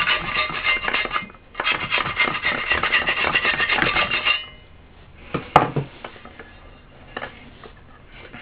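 A flat metal blade scraping old foam surround and glue residue off a Yamaha JA3060 woofer's frame rim, in two bouts of rapid rasping strokes with a short pause between. The scraping stops a little past four seconds in, followed by a single sharp knock and faint handling of the speaker.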